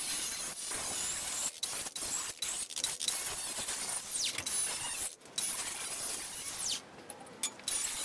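Cordless angle grinder's cut-off wheel cutting through square steel tubing: a steady high hiss of the wheel in the metal, breaking off briefly about five seconds in and again near the end.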